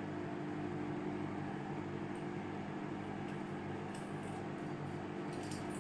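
LG microwave oven running a one-minute cycle, a steady hum with its turntable turning, roasting a papad; a few faint ticks.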